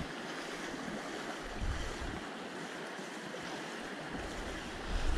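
Steady rush of flowing river water, with low wind buffeting on the microphone briefly about two seconds in and again near the end.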